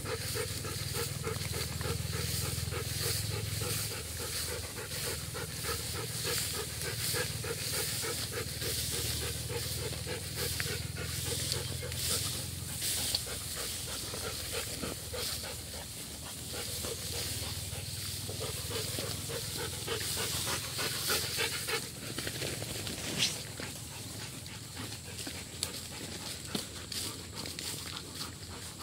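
A dog panting in quick, even breaths, over a rustling hiss of grass. One brief sharp knock about three-quarters of the way through.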